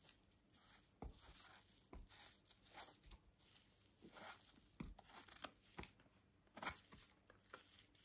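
Faint, scattered scrapes and light clicks of bolete mushrooms being handled.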